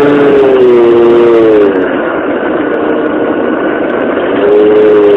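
Hawk Sky RC plane's electric motor and propeller droning, heard from a phone strapped to the airframe, over rushing air. The pitch wavers slowly. The drone fades about two seconds in and comes back near the end.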